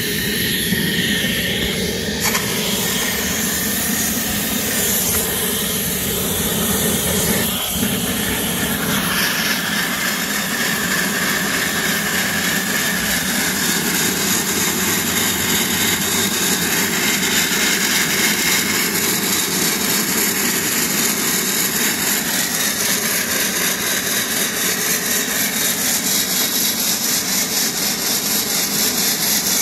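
5-inch gauge live-steam locomotive on a rolling road, being steamed up: a steady, loud rush of escaping steam. From about halfway in, an even pulsing beat comes into it.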